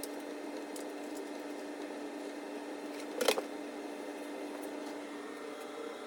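A steady hum with one sharp knock a little past three seconds in.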